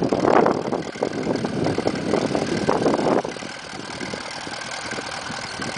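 Engine of a small vintage grey Ferguson tractor running as it drives across grass, rough and louder for about the first three seconds, then dropping to a steadier, quieter run.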